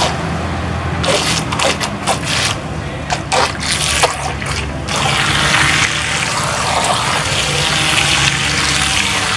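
Small twin-motor RC racing boat running in a basin of water, its propellers churning and splashing the water, with the steady hum of its electric motors underneath. Choppy splashes in the first few seconds give way to steadier churning from about five seconds in.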